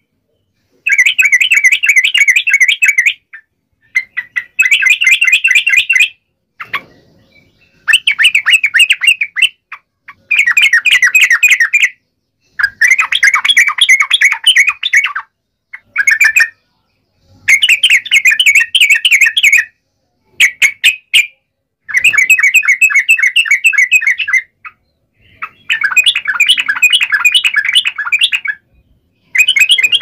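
Yellow-vented bulbuls (trucukan) chattering loudly in about ten rapid bursts of one to three seconds each, separated by short pauses. The calls are the excited, aggressive calls of birds squabbling.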